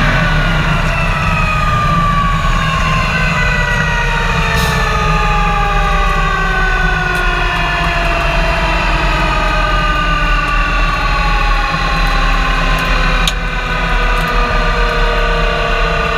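Supercharged Pro Mod drag car heard from inside its cockpit, with a steady low engine rumble and a whine that falls slowly in pitch throughout as the car slows. There are two short clicks, about four and a half and thirteen seconds in.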